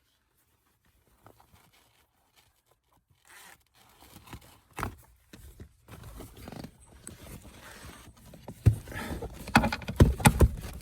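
After a few seconds of near quiet, hand tools scrape and rustle while unbolting a car seat's floor bolts. Sharp metal clicks and knocks follow, loudest in the last two seconds.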